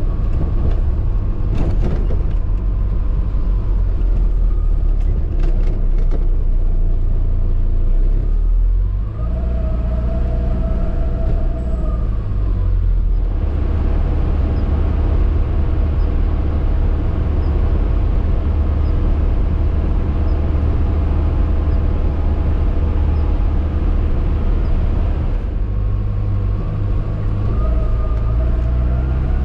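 Classic Hymer motorhome's engine running with tyre and road rumble, heard from inside the cab. The engine note rises twice, about a third of the way in and again near the end, as the motorhome picks up speed.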